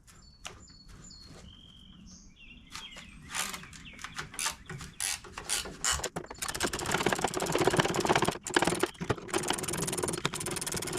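Ratcheting 1/2-inch wrench clicking as it backs out the last door hinge bolt: scattered clicks at first, then a fast, steady run of ratchet clicks over the second half.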